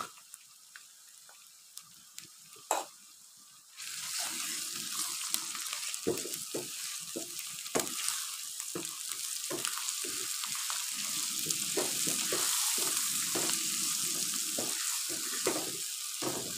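Onions, tomatoes and green chillies sizzling in ghee in a frying pan, stirred with a wooden spatula that scrapes and knocks against the pan. The sizzle comes in suddenly about four seconds in, after a quiet start with a couple of light taps.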